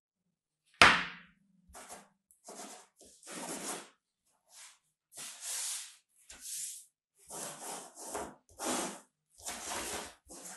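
A sharp knock about a second in, then a run of short scraping rustles, roughly one a second: molded soaps being slid and set down on a cloth-covered table.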